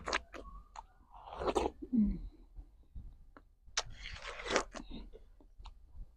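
People biting into and chewing juicy watermelon slices, with wet crunching bites in two bouts, about a second in and around four seconds in, and small clicks of chewing between them.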